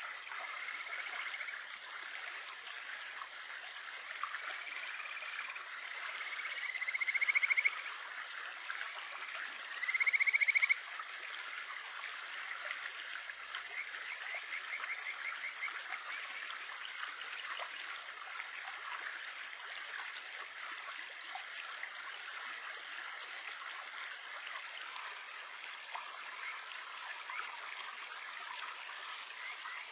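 Kajika frogs (Japanese stream frogs, Buergeria buergeri) calling over the steady rush of a stream: a few soft whistled notes, then two loud rising whistles a few seconds apart, followed by a quick pulsing run of notes. The rest is running stream water.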